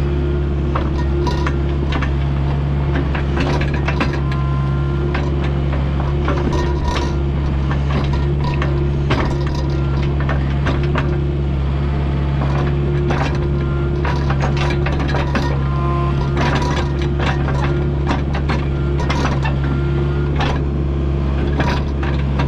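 Kubota U55-4 mini excavator's diesel engine running at a steady drone while it digs, with frequent clanks, knocks and crunches of the bucket working dirt and rock.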